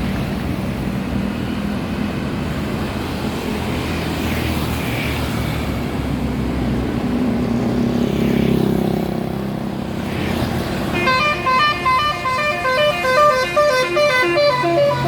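Steady engine and road noise, then about eleven seconds in a bus's telolet basuri horn, a multi-tone musical horn, plays a quick melody of short notes stepping up and down.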